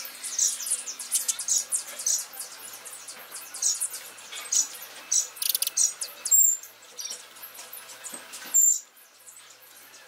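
Sparrows chirping: many short, high chirps in quick succession, with a brief thin whistled note or two, thinning out near the end.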